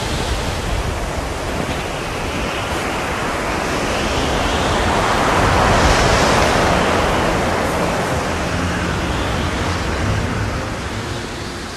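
Blizzard wind blasting across the microphone: a loud, steady rushing with low rumbling buffets. It swells to its strongest about halfway through and eases off near the end.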